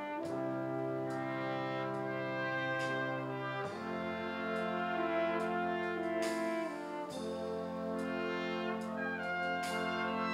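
Brass ensemble of trumpets, trombones and tuba playing held chords in a slow passage, the chord changing about every three and a half seconds.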